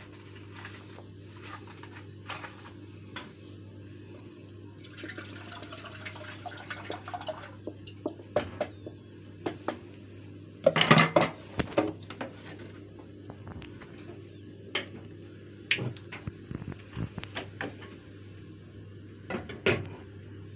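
Milk poured into an aluminium saucepan for about three seconds, then metal pans clinking and knocking on a gas stove's steel grates, loudest about eleven seconds in. A steady low hum runs underneath.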